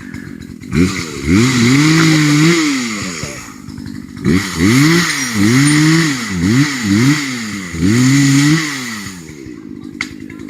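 Small two-stroke chainsaw engine being throttled up several times. Its pitch climbs to a high, held whine, then dips back toward idle between revs.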